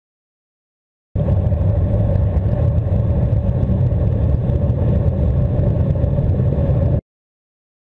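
Loud, steady underwater rumbling of a burst of exhaled air bubbles blasting against an underwater camera housing. It starts suddenly about a second in and cuts off abruptly near the end.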